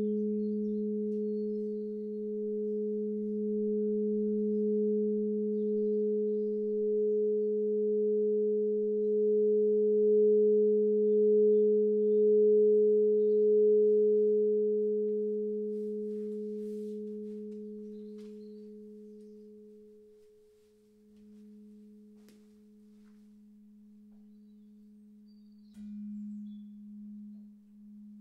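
A sound-bath instrument holds two pure, steady tones an octave apart, wavering slowly in loudness. It fades away over several seconds about halfway through, and a softer low tone swells again near the end.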